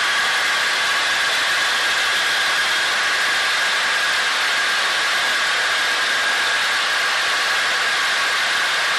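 Cabin noise of a Cessna 182Q in flight: the engine and propeller drone steadily under a loud hiss, with no change in power.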